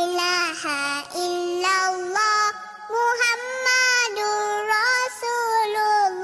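A high voice singing a slow Islamic selawat in the manner of a lullaby. It holds long notes that waver and ornament in pitch, with short breaks between phrases.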